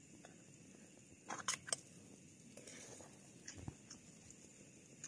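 A spoon scraping and clinking against a metal lunch box during eating, in several short bursts, the loudest about a second and a half in, with chewing between. Underneath, a faint steady hiss from the lit liquid-fuel camping stove.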